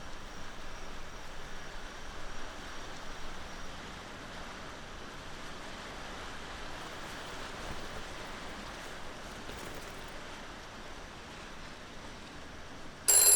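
Steady background hiss with no clear events. Right at the end a telephone starts ringing loudly.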